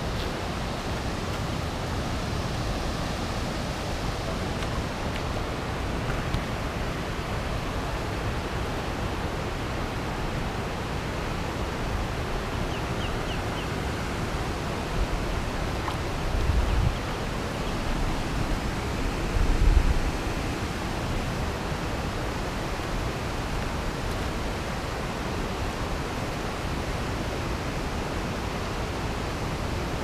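Steady outdoor rushing noise, with two short low rumbles about halfway through.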